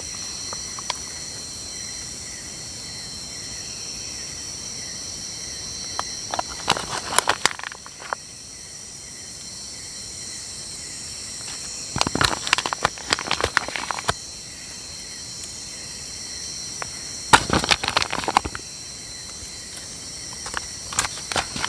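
Steady chorus of night insects such as crickets. Over it come three or four bursts of clicking and scraping as a spoon scoops meat from a foil pouch and taps it into a small metal camping pan.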